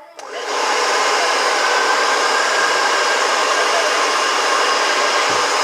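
Hair dryer switched on and blowing steadily, warming the slime to soften it.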